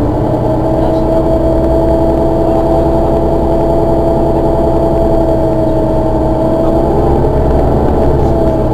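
Mercedes-Benz Citaro city bus's rear-mounted diesel engine idling, a steady whine sitting over the low engine hum. The whine wavers slightly near the end.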